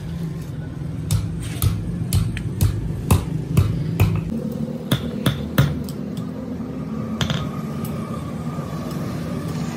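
Hand hammer striking red-hot bearing steel on an anvil, sharp ringing blows about two a second, thinning out after about five seconds. A steady low hum runs underneath.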